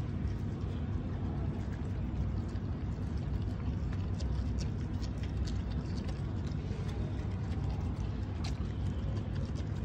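Dogs eating from bowls: faint, scattered clicks and smacks of chewing and lapping over a steady low rumble.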